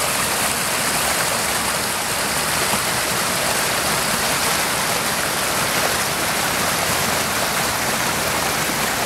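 Small stream swollen with spring run-off, rushing steadily over and around a fallen log in a short foaming cascade.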